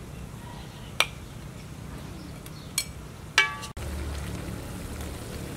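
A metal ladle clinking against the wok and a ceramic plate while curry is served out. There are three sharp clinks, and the last rings briefly, over a steady low background noise.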